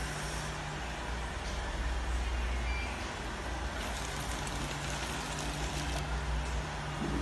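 Small automatic granule packing machine running: a steady motor hum with faint clicks every couple of seconds as the jaws seal and cut sachets.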